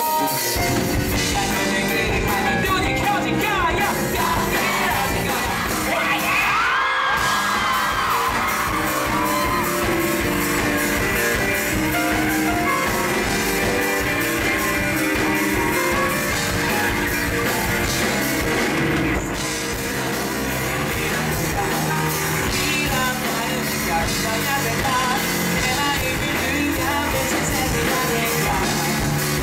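Live rock band playing with a man singing lead into a hand-held microphone, electric bass and keyboard under the vocal, heard from the audience floor of a concert hall.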